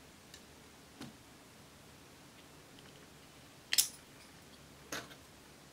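Sharp plastic clicks from a small eyeshadow compact being handled and snapped open, the loudest about three and a half seconds in and a second one about a second later, after a softer tap about a second in.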